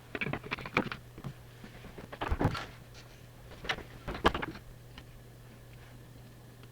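Several quick clusters of small clicks and taps, typical of tools and small parts being handled on a workbench, over a steady low hum.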